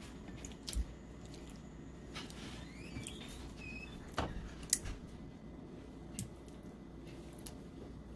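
Scattered soft clicks and taps of metal tongs with silicone tips setting raw marinated chicken pieces one by one into a nonstick pan, the loudest a little past the middle, with a few short squeaks between them. A faint low hum runs underneath.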